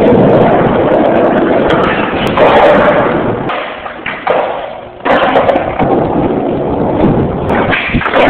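Loud rustling and rubbing noise of a phone's microphone being handled, easing off for about a second midway, with a thump near the end.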